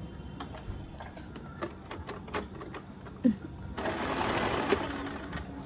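Electric sewing machine stitching hair onto a wig cap. It starts running about two-thirds of the way in and keeps going steadily, after a stretch of faint clicks from handling the hair and machine.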